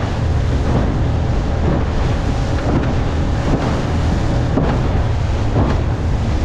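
Tiller-steered outboard motor driving a small aluminium boat at full throttle, with wind buffeting the microphone and the hull thudding and splashing through small waves about once a second.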